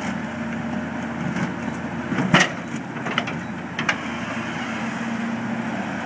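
A digging machine's engine running steadily, with a few sharp clanks, the loudest about two seconds in and two lighter ones over the next second and a half.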